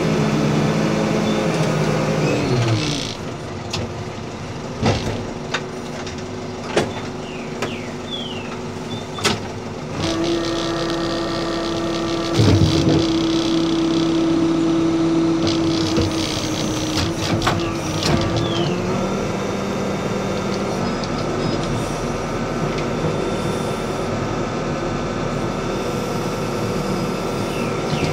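Backhoe loader's diesel engine running as the backhoe digs. The engine note drops about three seconds in, a few sharp knocks follow, and from about ten seconds in the engine holds a higher steady note under hydraulic load, with a loud clunk about twelve seconds in.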